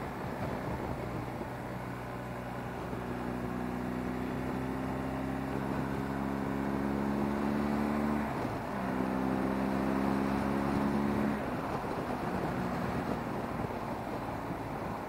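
Motorcycle engine pulling under throttle, its pitch rising slowly, with a short break about eight seconds in before it pulls again, then easing off near the end. Steady rushing wind noise from riding speed runs beneath it.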